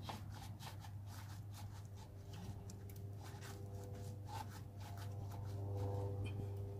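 Gloved hands working a rubber radiator hose off its fitting: faint scraping, rubbing and small clicks, over a steady low hum.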